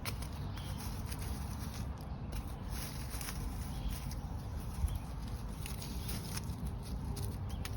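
Rustling and scraping of soil and dry potato haulm with soft knocks as potatoes are dug up by hand, over a steady low rumble; one slightly louder knock about five seconds in.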